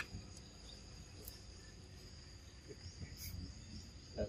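Steady high-pitched drone of insects in the forest, two thin unbroken tones, over a faint low rumble, with a few soft clicks and a small knock near the end.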